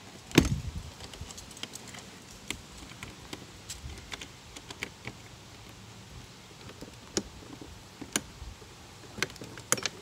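The entry door of a hard-sided pop-up camper shuts with a loud thump about half a second in. Scattered light clicks and knocks of the latch and hardware being handled follow, with a few sharper clicks near the end.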